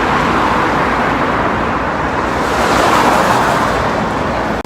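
Road traffic noise, a steady hiss of tyres and engines, swelling as a car passes about two and a half seconds in.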